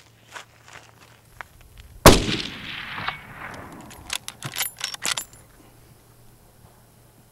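A single .30-30 rifle shot from a Marlin 336CS lever-action, about two seconds in, with an echo dying away over about a second. About two seconds later comes a quick run of metallic clicks, the lever being worked to eject the case and chamber the next round.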